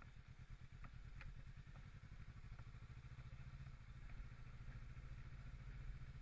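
Kawasaki Versys 650's parallel-twin engine running steadily at low revs, with a few light knocks and clatter over it.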